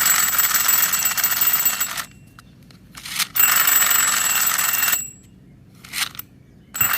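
Sound effect of a yellow toy cow, played in repeated bursts of about a second and a half with short gaps, and brief blips in between.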